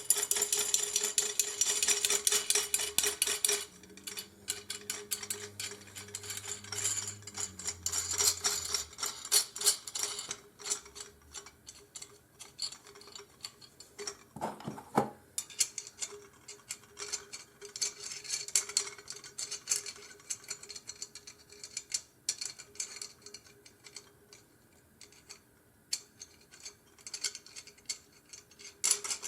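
Small metal hardware clicking and clinking as nuts and parts of an aluminum spool-holder kit are handled and threaded together. The clicks come in quick runs for the first few seconds, then as scattered ticks.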